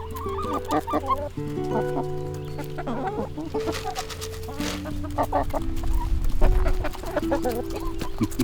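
Chickens clucking in short, wavering calls over steady background music, with a brief low rumble about two-thirds of the way through.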